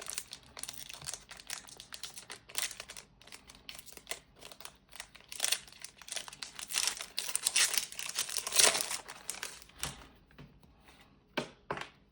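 Foil booster-pack wrapper crinkling as a pack is opened: a dense run of crackles that thins out about ten seconds in, with a couple of sharp crinkles near the end.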